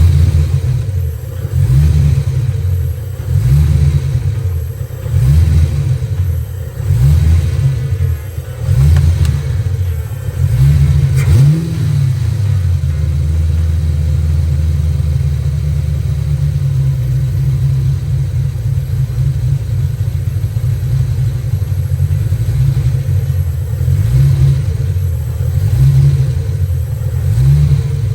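Ford Fox-body Mustang engine running after a distributor pickup (PIP) swap for a persistent misfire. Its throttle is blipped repeatedly, about once a second, for the first eleven seconds or so. It then runs steadily and is revved again near the end.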